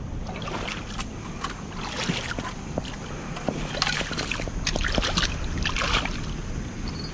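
Footsteps crunching and shifting on loose river cobbles at the water's edge, with stones clicking and scraping together in irregular bursts and some light splashing in the shallows, over a steady low rumble.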